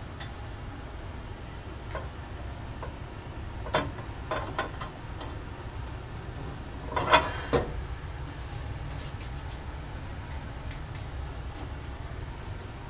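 Scattered clicks and knocks of a metal clamp and lab glassware being handled, the loudest a brief rattle about seven seconds in, over a steady low background hum.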